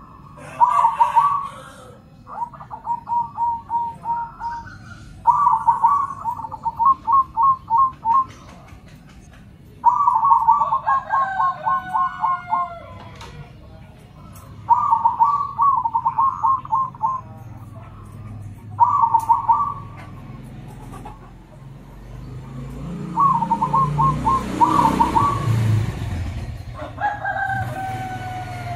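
Zebra doves (perkutut) cooing back and forth. About eight phrases of quick staccato coos come one after another with short gaps. About two-thirds of the way through, a broad rushing noise swells up under the calls.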